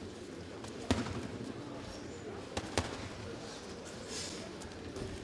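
Three sharp slaps of boxing gloves landing, one about a second in and two close together near three seconds, over a steady crowd murmur.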